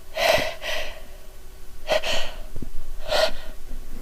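A woman's gasping in-breaths, four of them, as a sneeze builds from a tickling nose.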